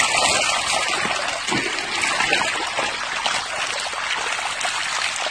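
Shallow river water running fast over stones and gravel, a steady rush with many small splashes.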